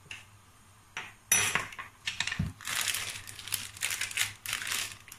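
A click and a knock about a second in, then a dense run of crackling and crinkling from dry spaghetti being handled.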